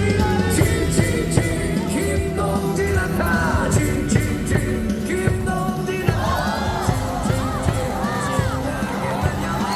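Baseball stadium cheer music over the PA with the crowd singing and chanting along. About six seconds in, shouts and whoops rise over the music.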